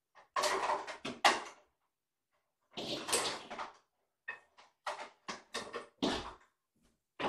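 A series of short, irregular scraping and knocking handling noises, several bursts a few seconds apart with brief silences between.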